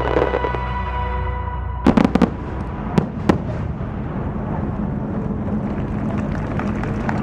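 Firework shells bursting in the air: a quick cluster of four sharp bangs about two seconds in, then two more single bangs about a second later. The accompanying music fades out just before the bangs, and a steady background with faint crackling follows.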